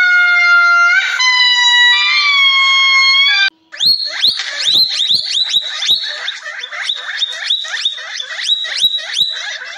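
Squirrel monkeys giving long, high, whistling calls, each held about a second. After a short break, a coypu eats, with sharp crunchy chewing clicks under rapid, high, falling chirps, about four or five a second.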